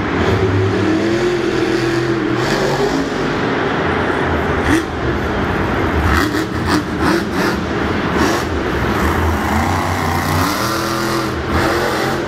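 Monster truck's supercharged big-block V8 revving hard and dropping back as it drives around the dirt floor, the revs climbing again near the end as it hits a jump. A cluster of sharp knocks comes a little past the middle.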